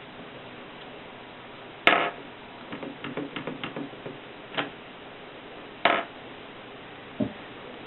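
Antique Mercedes typewriter mechanism clacking as it is worked: sharp single strikes about two and six seconds in, a quick run of lighter clicks in between, and a dull knock near the end.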